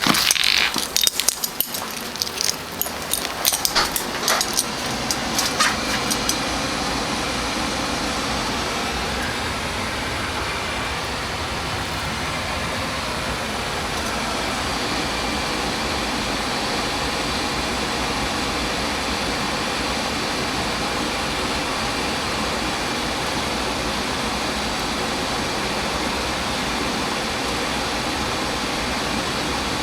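A few seconds of clicking and rattling, like a door and keys being handled, then the steady whoosh and hum of a 2003 Dave Lennox Signature Collection 80% gas furnace running with its burners lit and blower on.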